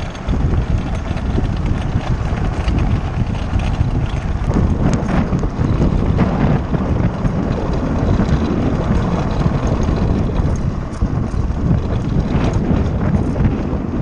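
Wind buffeting the microphone of a cart speeding down a loose gravel road, with the steady crunch and scattered rattling clicks of its tyres on the stones.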